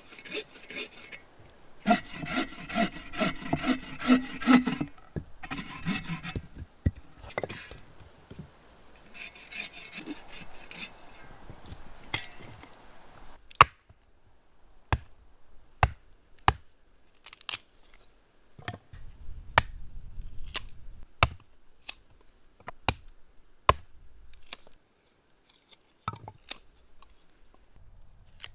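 Quick rubbing or scraping strokes on wood, followed by a run of sharp single knocks roughly a second apart.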